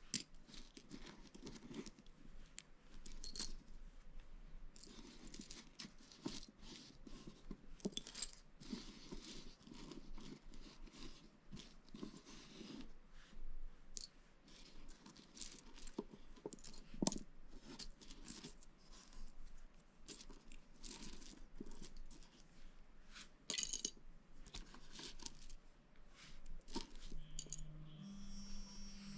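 Loose plastic Lego pieces clicking and clinking as they are picked through by hand and pressed together, with a string of irregular small clicks and short rustles.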